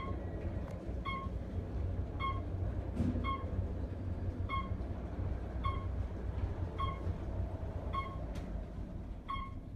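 Electronic beep from an Otis traction elevator car, sounding again and again about once a second, over the steady low rumble of the car and its machinery.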